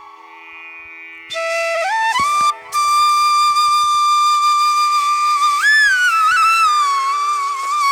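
Background music: a solo flute melody over a steady drone. After a quiet first second the flute slides up into a long held note, then bends and ornaments its line near the end.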